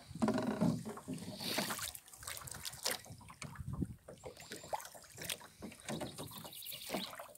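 Water splashing and dripping, with scattered knocks against the small boat's hull, as a fish trap is hauled up out of the lake by its rope.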